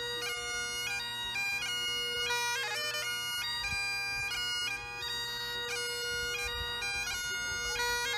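Great Highland bagpipe played solo: a steady drone under a chanter melody that steps from note to note.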